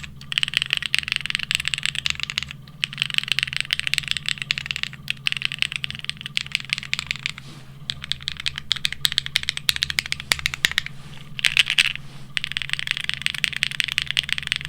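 Fast, continuous typing on a plateless, foamless Neo65 mechanical keyboard fitted with DCS-profile ABS keycaps: a dense clatter of key strikes. The typing breaks off briefly three times.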